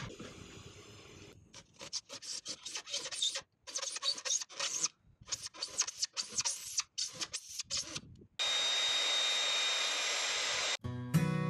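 Wooden board being hand-sanded with sandpaper in quick back-and-forth strokes. About eight seconds in, a handheld power tool starts and runs steadily with a high whine for a couple of seconds, then cuts off suddenly.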